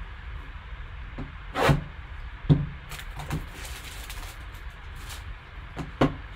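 Gloved hands handling a sealed, shrink-wrapped cardboard trading-card box: the plastic wrap rustles, and the box knocks against the table a few times as it is turned over and set down.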